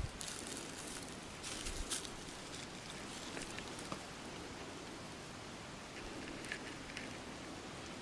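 Steady faint outdoor hiss with a few soft ticks and rustles, around two seconds in and again near six and a half seconds.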